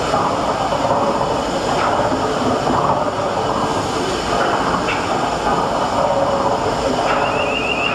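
Triple-expansion steam engine running: a steady mechanical clatter and rumble from its moving cranks, crossheads and rods, with a few sharp clicks. A warbling high tone starts near the end.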